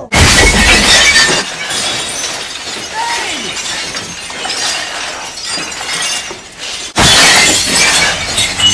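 Shelves of ceramic mugs crashing down and shattering: one sudden loud crash, then a long clatter of breaking crockery that slowly thins out. A second loud crash of breaking crockery starts abruptly about seven seconds in.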